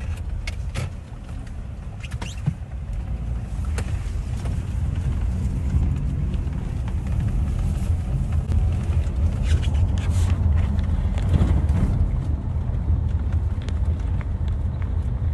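Steady low rumble of a motor vehicle, with a few faint clicks and knocks.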